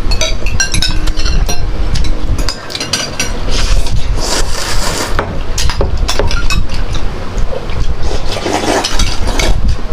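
Close-miked eating sounds: chewing and wet slurping of ramen, with utensils clinking against dishes.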